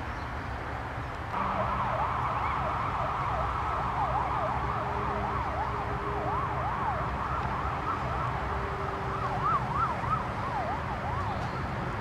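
A siren starts about a second in and wails in quick up-and-down sweeps, a few each second, until near the end. A low, steady rumble runs underneath.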